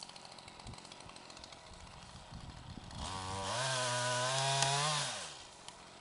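Chainsaw revving up about three seconds in, running steadily at high speed for about two seconds, then dropping back off.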